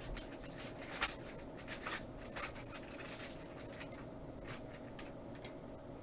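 Trading cards being slid and flipped through by hand: a run of short, dry swishes and flicks, thinning out after the first few seconds, over a steady hum.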